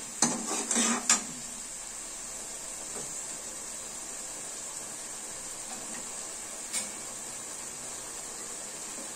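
A steel ladle scraping and knocking against a steel kadai of masala for about the first second, then a steady faint hiss with a single metal clink near the seventh second.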